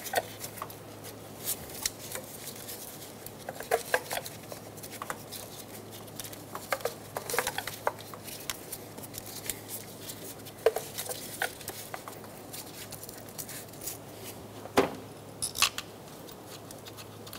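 Plastic clicks and knocks of ignition coils being handled and pushed down into the spark plug tubes of a four-cylinder engine, scattered sharp clicks every second or few seconds.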